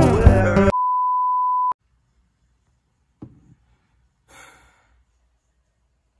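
Acoustic guitar music stops abruptly under a second in, then a steady single-pitched beep, like a censor bleep, sounds for about a second and cuts off. Two faint breaths follow.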